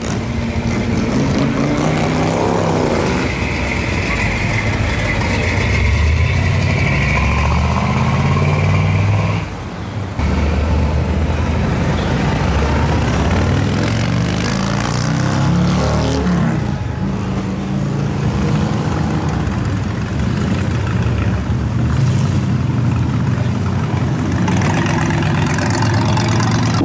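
Classic American cars driving slowly past one after another, among them a Pontiac Trans Am, a 1962 Chevrolet Impala and a Ford Model A-style hot rod coupe, their exhausts running loud, with engine pitch rising and falling as each one pulls by. The sound cuts off sharply and changes to the next car about ten seconds in.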